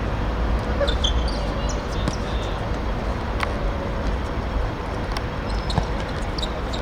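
Steady outdoor background noise around a football pitch: a continuous low rumble with a few faint knocks and brief distant high-pitched calls.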